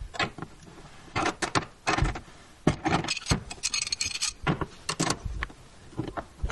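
Metal tools clinking and scraping in a bathtub drain: a screwdriver-like rod held in the drain flange's crossbars and turned with an adjustable wrench, tightening the drain flange into the drain shoe. Irregular clicks and knocks, with a short grating scrape about four seconds in.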